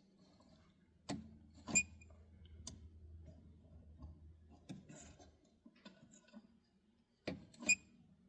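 Sharp metallic clicks and taps of a small steel spring clip and needle-nose pliers against the steering column. The clicks come in scattered ones, with the loudest two pairs about a second in and near the end, each ringing briefly.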